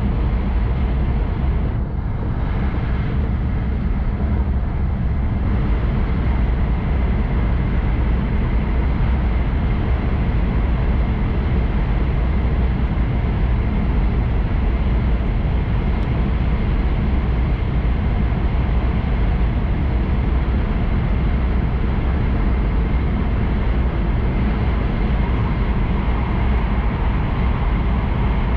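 Tohoku Shinkansen train running at speed, heard from inside the passenger cabin: a steady low rumble and rushing noise, with a faint steady high tone over it.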